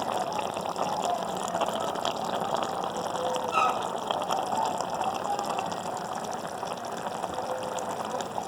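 Food cooking in liquid: a steady watery hiss and bubbling with scattered small crackles.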